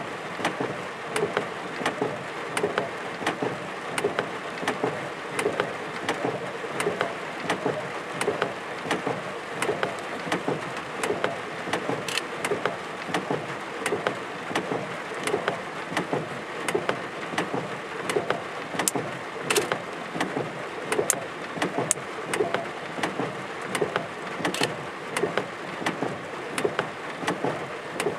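Rain falling in a thunderstorm: a steady hiss with many sharp drop ticks a second, irregular, close to the microphone, and no thunder.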